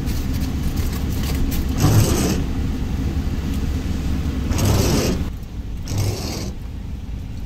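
Steady low rumble of a vehicle running, heard from inside the cabin, with a few short bursts of a food bag rustling and crinkling, the loudest about two seconds in and near the middle.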